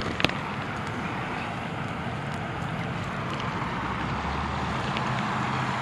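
Steady rush of water pouring over a low dam spillway, with one sharp click just after the start.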